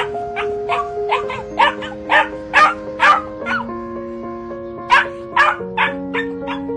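A dog barking and yelping over and over in quick runs, with a short break about halfway through, over background music with held chords.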